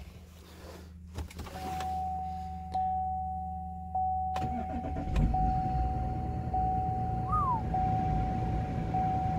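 A 3.0 L LM2 Duramax inline-six diesel cold-starting at about −25 °C without a block heater. After a low hum with the key on, there is a click about four seconds in, and the engine catches right away and keeps running. A steady electronic chime sounds in the cab, breaking off about once a second.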